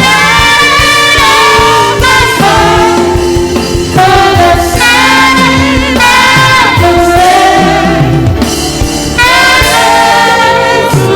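Live gospel music: a saxophone plays the melody with vibrato and sliding notes over a backing band with a moving bass line.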